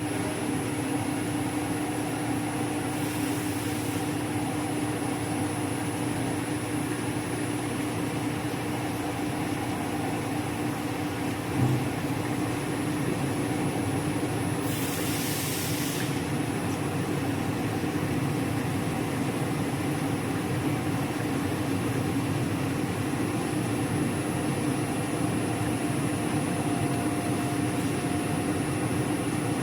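CNC machine running steadily while cutting metal, a constant hum with a thin high whine. Two short hisses, about three seconds in and again around fifteen seconds, and a single knock near twelve seconds.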